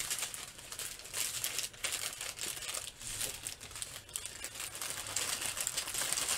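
Plastic packaging crinkling as it is handled, a continuous run of small irregular crackles.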